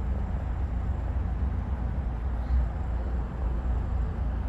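Low, steady rumble of an oncoming double-stack freight train's diesel locomotives heard from a distance.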